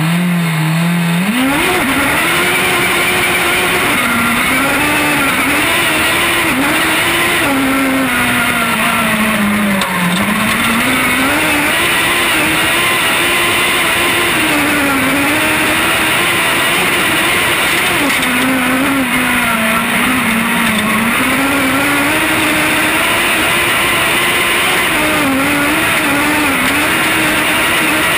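Onboard sound of a single-seater autograss racing car's engine: it holds a steady note on the start line, then revs up and pulls away about a second and a half in, and runs hard for the rest of the lap with the revs rising and falling through the bends and gear changes, over loud wind and dirt-track rumble.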